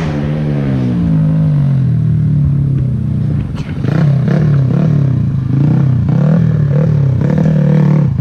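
Underbone motorcycle engine running loud: first it settles to a steady pitch, then from about halfway in it is revved up and down in quick repeated throttle blips.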